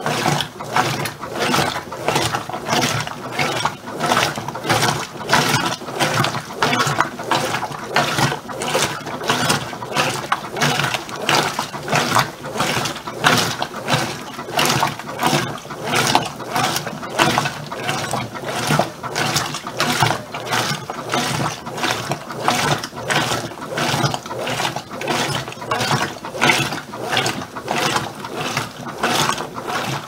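Brastemp BWK15 top-load washing machine agitating: the agitator reverses in quick, even strokes, about two and a half a second, sloshing the water and clothes with a clicking mechanical drive. The strokes are wide and forceful because the tub holds well under a kilo of clothes in very little water.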